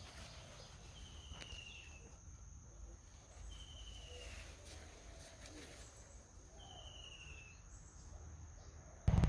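Quiet field ambience: a steady high insect trill, with three short falling whistled bird calls two to three seconds apart. A loud low rumble breaks in at the very end.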